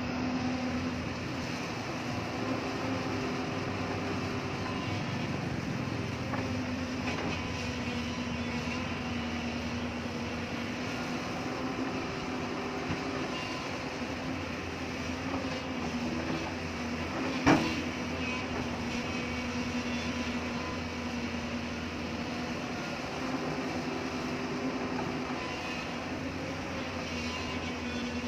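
Hyundai excavator's diesel engine running steadily while digging hard rock, its note rising in a higher tone a few times as it works. One sharp knock about two-thirds of the way through.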